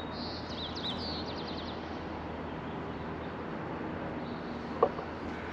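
Steady outdoor traffic and city background noise. A small bird chirps a quick run of high notes in the first second or two, and a single sharp knock sounds near the end.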